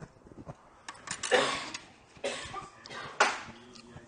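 A man coughing three times, about a second apart, each cough sharp at the start and fading quickly.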